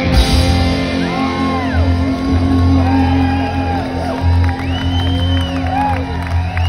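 Live rock band holding a sustained low chord with the bass droning steadily, while audience members whoop and shout over it, one voice after another.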